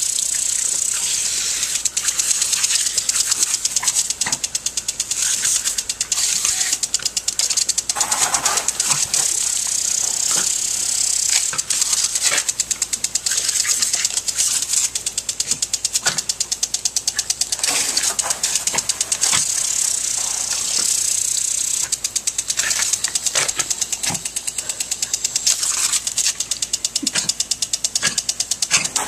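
Lawn sprinkler running: a steady hiss of spray with a fast, continuous rattling tick from the spinning sprinkler head.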